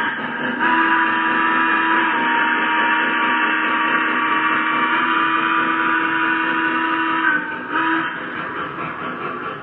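Lionel Legacy model steam locomotive's electronic multi-chime steam whistle: one long blast of several seconds, a short break, then a brief toot, after which the freight cars are heard rolling on the track.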